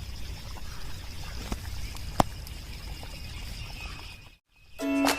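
Tamarind gravy simmering in a clay pot: faint low noise with a few soft pops and one sharper click about two seconds in. Music begins near the end.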